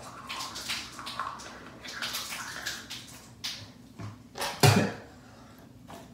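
Toothbrush scrubbing teeth hard through a mouthful of toothpaste foam: a quick run of wet brushing strokes. About four and a half seconds in comes one louder thump.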